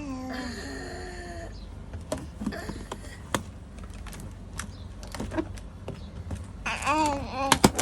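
A baby vocalizing: short whiny cries that rise and fall in pitch near the end, after several seconds of small clicks and knocks, one sharper about three seconds in.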